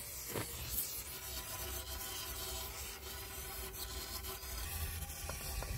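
Steady rubbing noise as WD-40 is worked through the RPG-7 launcher tube, with a few light clicks near the end.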